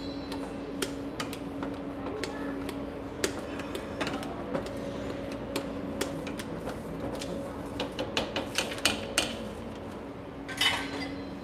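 A utensil clicking and knocking against a stainless steel saucepan as butter is stirred and melted, scattered taps that bunch into a quick run of clinks toward the end, over a steady low hum. A short rustle near the end.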